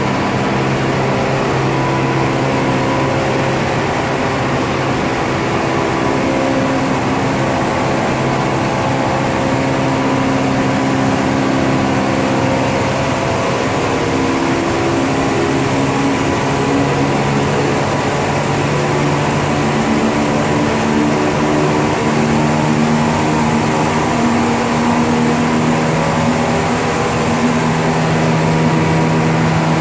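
Comexi F+ ten-colour flexographic printing press running: a loud, steady machine drone with several hum tones that slowly shift in pitch.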